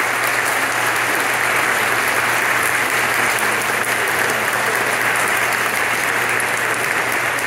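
Audience applauding, a steady clapping.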